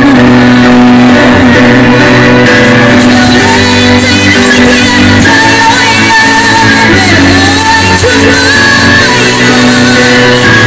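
A woman singing a Vietnamese song into a microphone through a PA, over a loud backing track.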